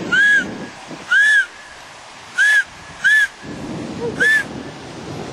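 Five short, loud, clear whistled notes, each rising and then falling in pitch, spaced irregularly about a second apart, over steady wind noise.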